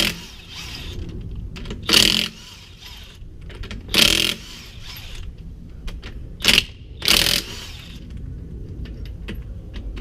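DeWalt DCF899 20-volt brushless cordless impact wrench hammering in short bursts, about five, each under a second, breaking loose tight fasteners.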